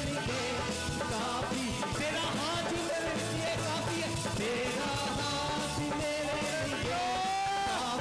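Live Urdu/Hindi worship song: several men singing into microphones over the steady beat of a hand-played two-headed barrel drum (dholak).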